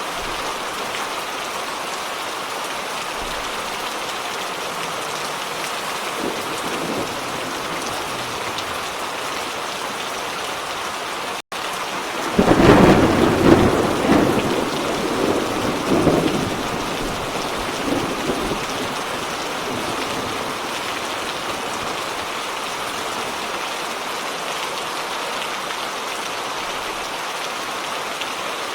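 Steady rain falling, with a rolling peal of thunder about twelve seconds in that rumbles for several seconds and dies away in smaller swells. The rain cuts out for an instant just before the thunder.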